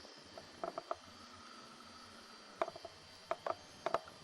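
Scattered light clicks and knocks in small clusters, with a steady high insect drone behind them.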